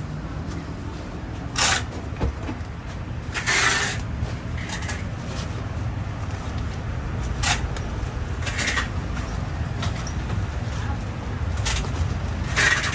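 Knife work on a durian: about seven short, sharp scraping cracks spread out over a steady low hum of traffic and market background.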